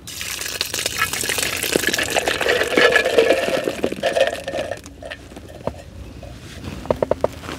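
Juice poured from a tin of tiger nuts splashing onto boilies in a bait bucket, with the nuts then tipped out onto the bait in a patter of small clicks. The sound tails off about five seconds in, leaving a few scattered clicks.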